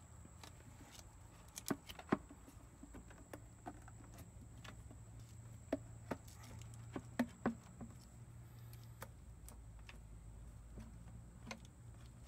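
Irregular light clicks and knocks of hand tools and scooter parts being handled during reassembly, over a low steady hum.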